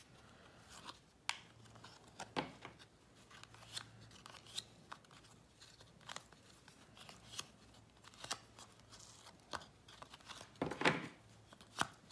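Upper Deck hockey trading cards being thumbed through by hand, one card slid off the stack after another, giving soft, irregular clicks and brushing of card against card. There is a louder flurry of card handling near the end.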